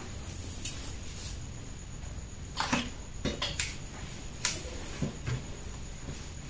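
A few short knocks and rustles as fabric is smoothed and a steam iron is picked up and pressed on an ironing board, over a steady low background hum.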